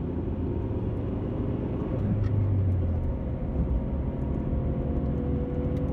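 Inside a 1991 Honda Accord CB7 while driving at speed: steady engine and road rumble. Over the last couple of seconds a steady hum grows louder, which the owner picks out as the suspected bad wheel bearing.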